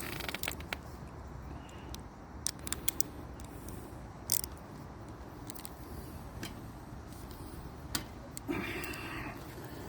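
Scattered small clicks and taps of hand tools and brake hardware as a bicycle brake pad is repositioned and tightened on the caliper arm, with a brief rustle near the end.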